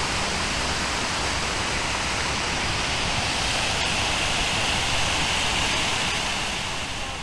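Water from the Stone Flower fountain's many jets falling and splashing into its basin: a steady rush of water.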